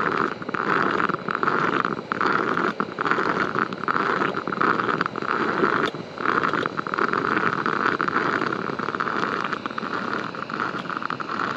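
Stainless percolator coffee pot heating on a gas-canister camp stove: a steady bubbling and hissing with brief dips.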